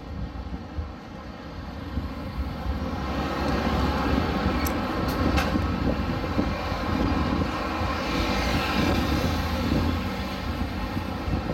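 Passing road traffic and wind rushing over a phone's microphone while riding a bicycle beside a busy road, the noise swelling from about three seconds in and easing near the end, with a few light ticks around five seconds in.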